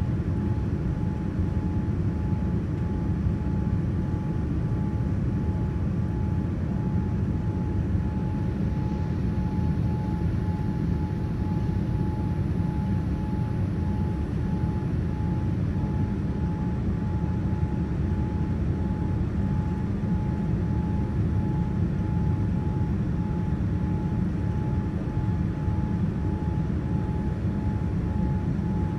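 Steady cabin noise of a Boeing 787-9 airliner on approach, heard from a window seat beside the wing: a low rumble of engines and airflow with a faint high whine held on one note.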